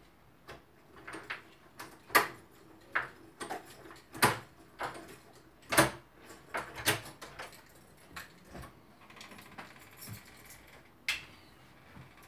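A door being unlocked and opened from outside: a run of sharp, irregular clicks and knocks from the lock and handle, a few of them loud, with a last click about eleven seconds in just before the door swings open.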